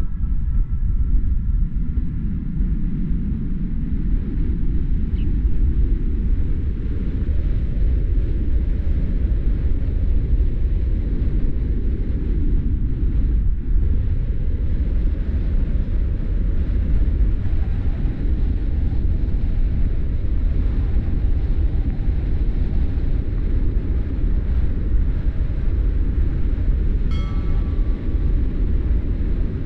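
Car driving at speed: a steady low rumble of tyre and wind noise. A brief high-pitched tone sounds near the end.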